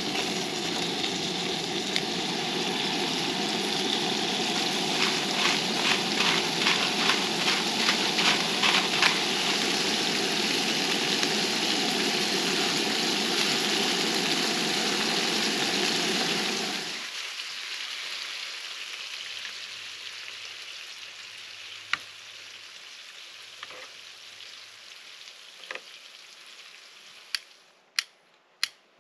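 Scallops searing in hot oil in a frying pan on a two-burner camp stove: a steady sizzle with quick pops and crackles in the middle. The sizzle stops suddenly about two-thirds of the way through, leaving a quieter background with a few sharp clicks near the end.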